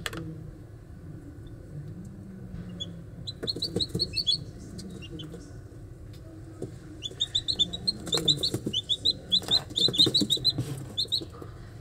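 Young domestic chicks peeping: short, high cheeps in quick runs, a brief flurry about three seconds in and a longer, louder stretch from about seven seconds on.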